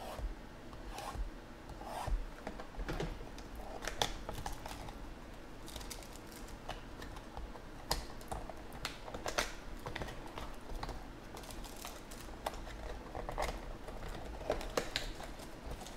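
Hands working open the plastic wrap and cardboard lid of a sealed trading-card box: irregular scratching, scraping and small clicks.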